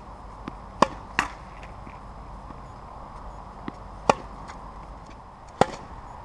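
Tennis racket striking the ball on forehand strokes: four sharp pops, two close together about a second in, one about four seconds in and one near the end, with a fainter tap just before the third.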